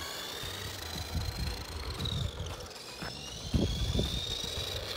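Electric motor of a remote-control toy car whining as it drives, the pitch rising with speed, dipping about two and a half seconds in, then climbing again. A low rumble grows louder in the second half.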